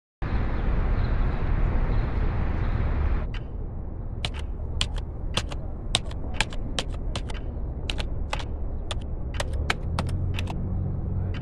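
A loud steady hiss over a low rumble that cuts off after about three seconds, then computer keyboard keys clicking one at a time, about two or three keystrokes a second, over a low rumble.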